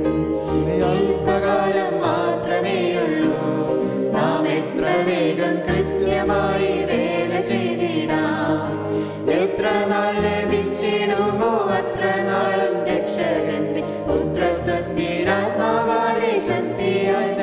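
A small group of singers sings a Malayalam hymn to instrumental accompaniment, over held bass notes that change every couple of seconds.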